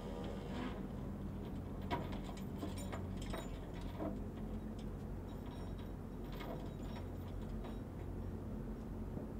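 ScanEagle drone's engine buzz fading out about half a second in. After it comes a steady low rumble with scattered light clicks and ticks.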